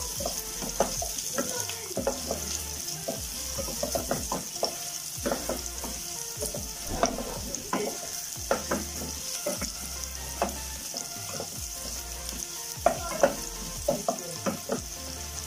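Chopped red onion and garlic sizzling in oil in a stainless steel pot, sautéing until translucent, while a wooden spatula stirs them and scrapes and taps against the pot.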